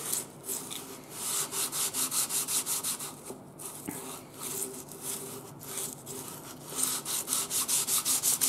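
Oiled wet sandpaper on a hand honing block, rubbed back and forth over a hydrostatic transmission casting to lap out wear grooves. The scratchy strokes come quickly, several a second, with a short lull a little past three seconds in.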